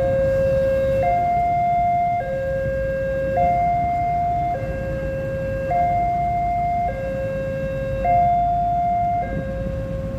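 Railway level-crossing warning alarm sounding while the barrier is down: a two-tone electronic signal that switches between a lower and a higher tone about once a second, over a low steady rumble.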